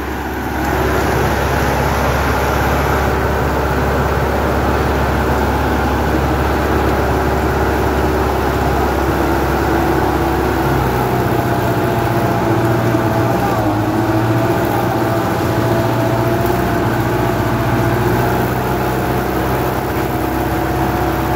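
Sonalika 75 HP tractor's diesel engine running steadily under way, heard from the driver's seat. Its note changes about halfway through.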